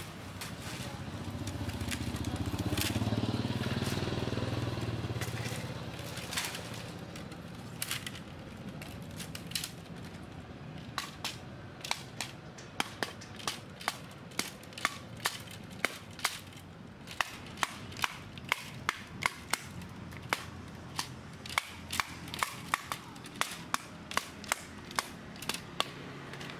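Sharp wooden knocks, about one to two a second through the second half, as the bamboo strips of a woven basket-boat hull are beaten tight with a wooden block. In the first few seconds a low engine hum from a passing vehicle swells and fades.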